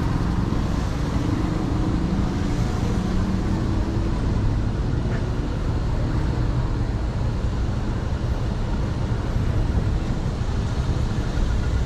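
Street traffic: motor vehicles running past with a steady engine rumble, one engine's hum standing out in the first few seconds.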